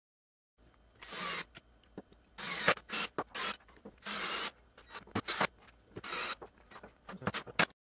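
Cordless drill/driver driving screws through a metal bracket into wood in short bursts of about half a second each, with sharp clicks of handling between them.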